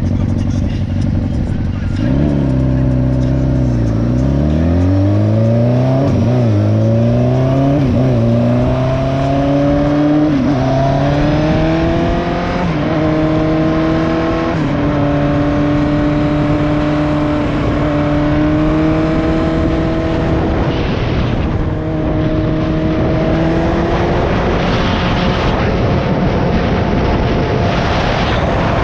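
Motorcycle engine under way. The revs climb and fall back several times as it works up through the gears over the first fifteen seconds, then it holds a steady cruising note. The exhaust has a leak.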